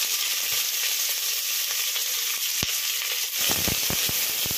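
Sliced onions sizzling as they fry in hot coconut oil in an aluminium pressure cooker. A wooden spatula stirs them, knocking against the pot several times in the second half.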